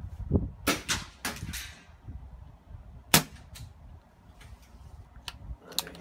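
Pre-charged pneumatic air rifle firing once, a single sharp crack about three seconds in. A quick run of clicks and clacks comes about a second in, and a few fainter ticks follow the shot.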